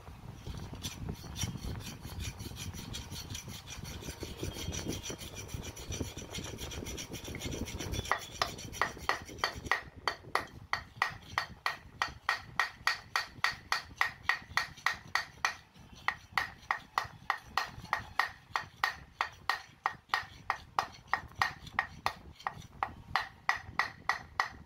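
Armature being driven out of a 16 kg breaker hammer's housing. For the first third there is a rough scraping and rubbing, then steady hammer blows on a wooden drift, about three a second, each with a short ring. The armature is stuck tight where its bearing seat has failed.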